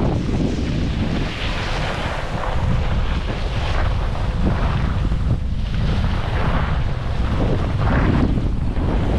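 Wind buffeting a moving camera's microphone with a heavy rumble during a downhill run on a groomed ski slope. Over it, snow hisses under the edges in swells about once a second, turn by turn.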